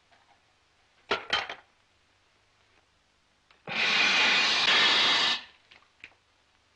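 Crockery clattering in two or three quick knocks about a second in, then a loud, steady rushing hiss for nearly two seconds that stops abruptly.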